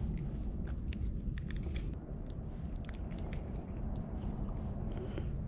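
Close handling noise as hands unhook a small crappie from a jig: a scatter of small clicks and crackles over a steady low rumble.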